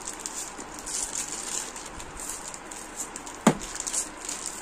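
A person quietly chewing a piece of chocolate, with soft crunchy crackles, and a single sharp knock about three and a half seconds in.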